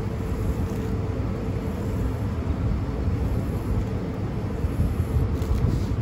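Steady low rumble of rooftop HVAC machinery running, with a faint steady hum over it.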